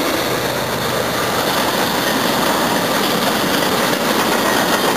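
CSX freight train passing close by: diesel locomotives running and cars rolling on the rails, a loud, steady rumble with no horn.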